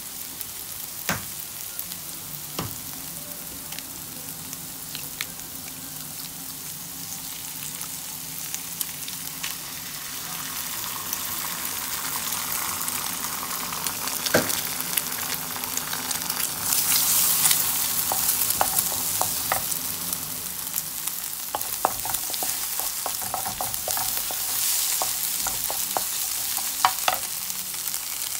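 Sliced onions sizzling in hot oil in a frying pan while a wooden spatula stirs and scrapes them, with scattered light taps and pops. The sizzle gets louder from about a third of the way in, loudest a little past the middle.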